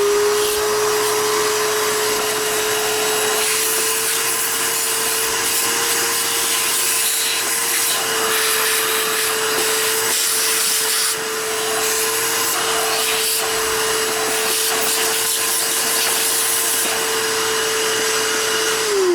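Shop vac running steadily, a constant motor hum over a rush of air, winding down near the end.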